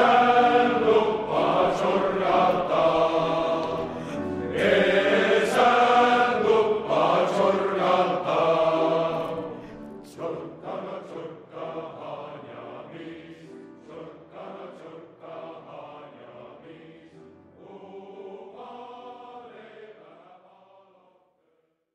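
Men's choir singing. About ten seconds in the singing drops to a much lower level, and it fades out near the end.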